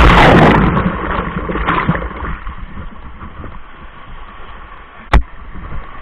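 Whitewater crashing over the camera as a paddle raft flips in a big rapid: a loud rush and splash of water that fades over the first couple of seconds into steadier churning water. A single sharp knock about five seconds in.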